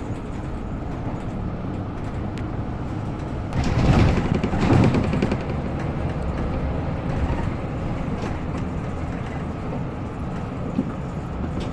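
Mercedes-Benz Citaro K C2 city bus under way, heard from inside near the front: a steady engine and road rumble. A louder rattling rumble comes about three and a half seconds in and lasts just under two seconds.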